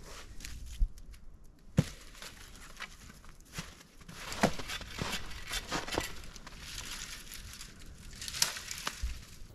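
Footsteps crunching through snow and dry brush, with several sharp cracks of dry sticks and branches being snapped and handled.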